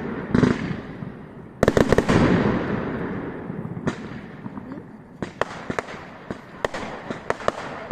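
Fireworks going off: a loud bang near the start, then a cluster of sharp bangs about one and a half seconds in with a rumble that fades away. In the last few seconds there are many quick crackling pops.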